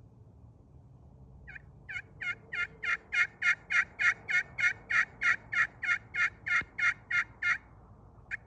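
Red slate over glass turkey pot call worked with a bloodwood striker, run in a long series of hen yelps, about three notes a second. The first few notes are softer, then the run holds steady to its end.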